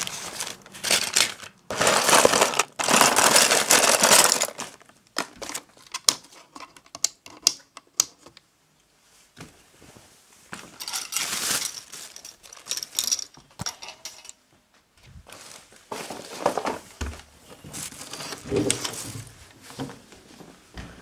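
Crinkling and rustling in loud bursts over the first four seconds, then a run of sharp clicks. After a quiet gap it comes back softer, with another burst midway and lower rustling near the end.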